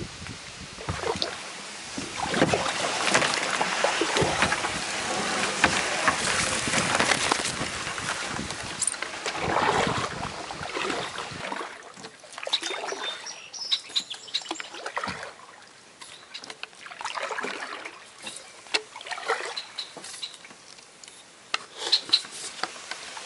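Kayak paddling through reeds: for about the first ten seconds a loud, dense rustle as stalks brush and scrape along the plastic hull, then quieter paddle strokes with water dripping and splashing off the blade, and a few sharp ticks near the end.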